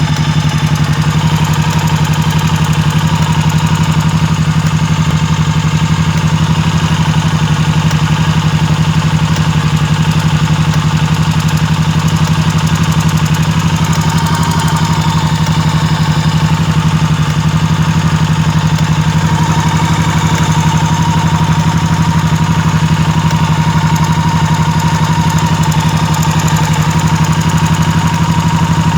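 2000 Honda VT1100 C2's V-twin engine running steadily at idle, with a knock that the owner is asking about; he says it comes on as the engine warms up or above mid throttle. A faint steady whine grows stronger about halfway through.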